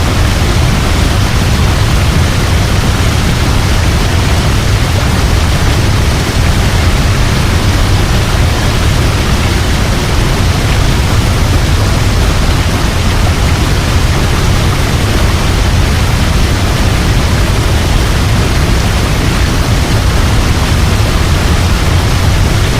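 Waterfall pouring steadily, a constant rushing roar of falling water with a deep low rumble.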